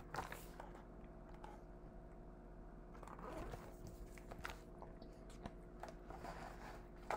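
Faint rustling and soft clicks of a paper picture book's pages being handled and turned, over a steady low hum.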